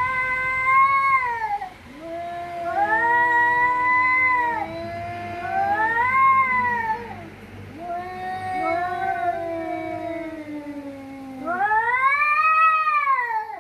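Two domestic cats yowling at each other in a fight standoff: long, wavering, overlapping caterwauls, one voice lower than the other, with the loudest rising-and-falling howl near the end.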